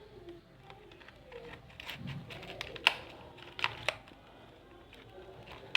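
Handling noises: a scatter of sharp clicks and taps, the loudest about three seconds in and a quick group of them shortly after.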